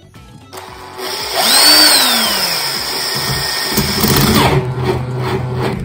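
Electric drill starting about a second in and running, its pitch rising and then falling before it runs on more steadily, as it bores out the stripped spark-plug thread in a Husqvarna 545 chainsaw's cylinder for a thread repair insert.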